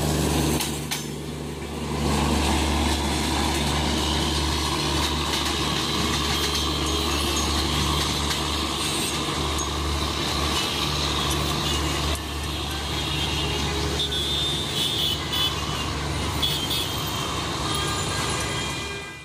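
Passenger train's rear power car, a diesel generator car, rolling past at close range with its generator engine running and wheels on the rails. A steady low hum holds at much the same level as the train moves off.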